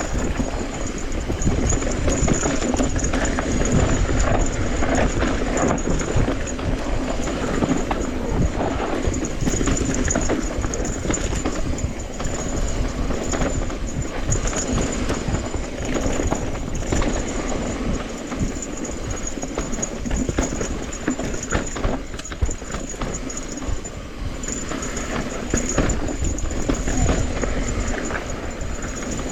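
Electric mountain bike clattering and rattling over a rough trail at riding speed, with tyre rumble and a thin steady high whine.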